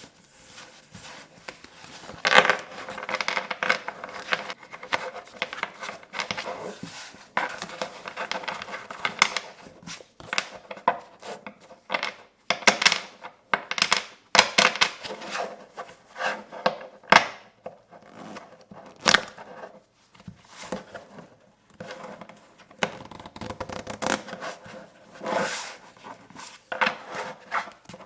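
Playing cards handled close to the microphone: shuffled, flicked and tapped in irregular bursts of crisp clicks and papery rustles.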